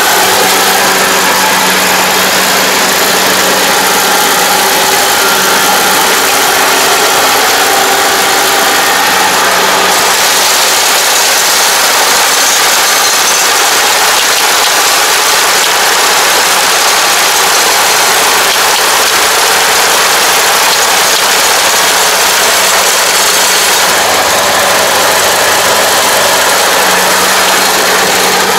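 Kubota combine harvester running steadily as it cuts and threshes lodged rice, a loud even machine noise with a steady low hum. For a stretch in the middle the sound turns hissier.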